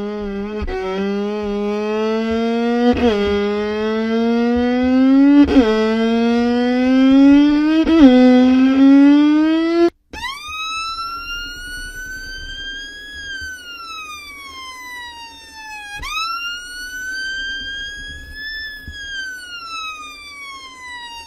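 Violin imitating a siren with long sliding notes. For the first ten seconds a low note slides slowly upward and snaps back down about every two and a half seconds. After a brief break, a higher note rises and falls slowly twice, like a wailing siren.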